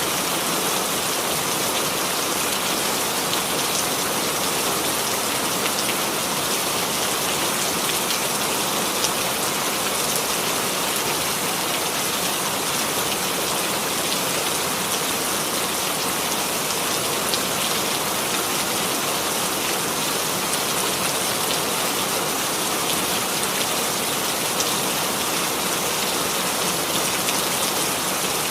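Steady rainfall sound effect: an even hiss of rain with scattered drops pattering on a surface, unchanging throughout.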